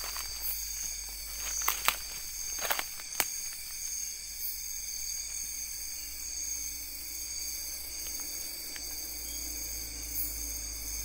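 Steady chorus of night insects trilling in several high-pitched bands. A few sharp clicks and snaps come about two to three seconds in.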